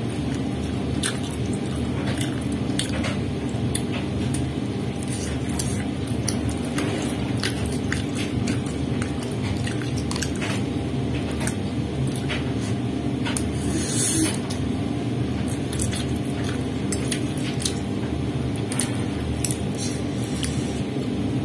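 Mukbang eating sounds: a metal fork and ceramic spoon clicking and clinking against a ceramic soup bowl, with wet, squishy chewing of meatballs and noodles. A steady low hum runs underneath, and there is one brief louder rush of noise about two-thirds of the way in.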